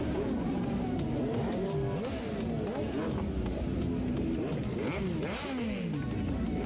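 Several motorcycle engines revving at once, their pitches rising and falling and overlapping one another.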